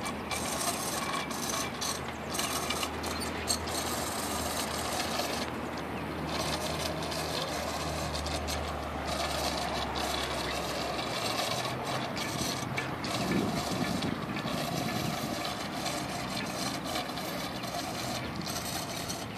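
Steady rushing noise of riding a bicycle on a paved path: wind buffeting the microphone mixed with tyres rolling on asphalt. A low hum underneath stops about eleven seconds in.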